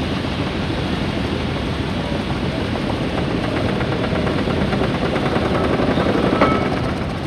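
1911 triple-expansion marine-type steam engine being started by its donkey engine: the machinery runs with a dense, rapid, rhythmic clatter and chuffing. A single sharp metallic knock with a brief ring comes about six and a half seconds in.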